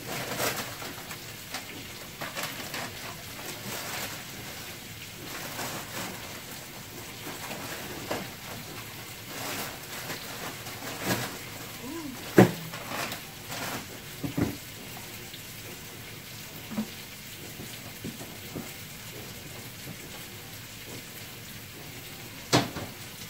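Food sizzling in a pan, a steady crackling hiss, with a few sharp knocks over it, the loudest about twelve seconds in and another near the end.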